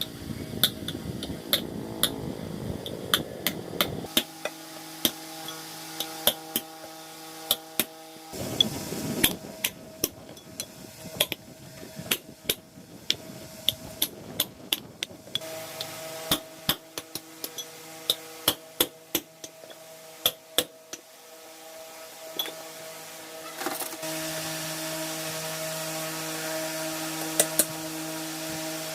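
Hand tools tapping and clinking during repair work, many short sharp knocks at irregular spacing, over a steady low hum.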